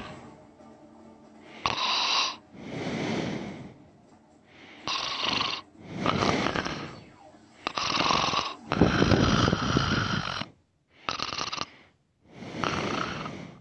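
A man snoring in his sleep: a run of noisy, rasping breaths in and out, about eight in all, with short pauses between them. The longest and loudest snore comes about nine seconds in.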